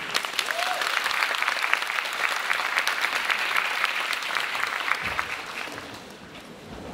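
Audience applauding, many hands clapping, dying away after about five seconds.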